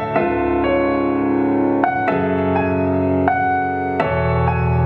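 Recorded music led by keyboard chords over a bass line, each chord struck sharply and then held.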